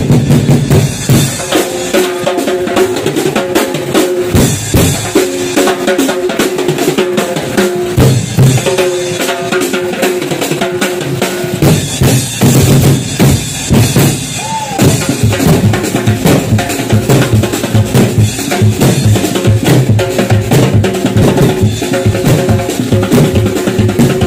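Loud procession band music: fast, steady drumming with bass drum and snare under held pitched notes from other instruments.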